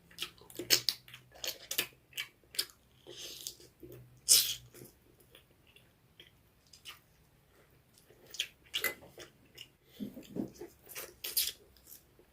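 A person chewing and biting food close to the microphone, making irregular wet mouth sounds and short sharp clicks.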